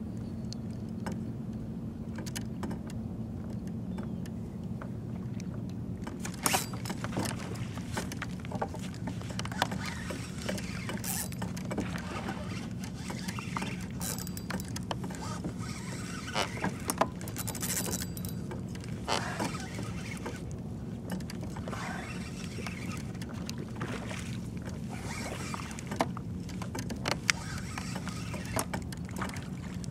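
A spinning reel is being cranked against a fish hooked from a kayak, with water splashing and slapping at the hull. Irregular sharp clicks and knocks start a few seconds in, over a steady low hum.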